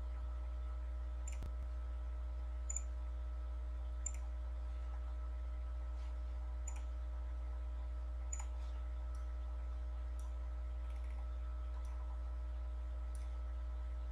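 Computer mouse clicking: about half a dozen sharp single clicks, irregularly spaced a second or more apart, over a steady low electrical hum.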